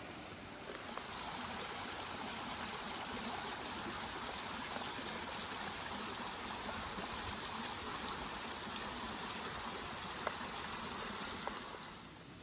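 Steady rush of running water, a jungle stream or fall, coming up about a second in and falling away near the end.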